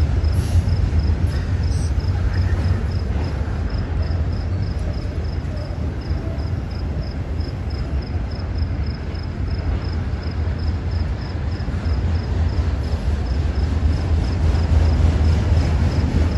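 Union Pacific double-stack intermodal train rolling past mid-train: a steady low rumble of the container well cars' steel wheels on the rails, swelling slightly near the end. A faint high chirp repeats evenly about three times a second.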